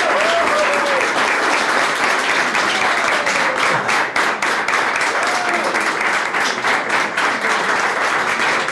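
A room of guests applauding: dense, steady clapping, with a few voices calling out over it.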